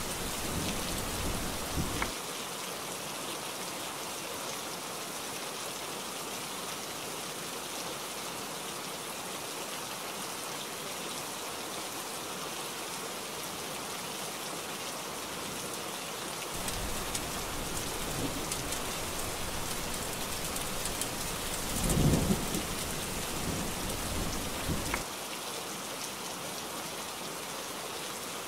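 Heavy rain falling steadily, with rolling thunder: one rumble dies away about two seconds in, and another builds after the middle, is loudest about three-quarters of the way through, and fades out a few seconds before the end.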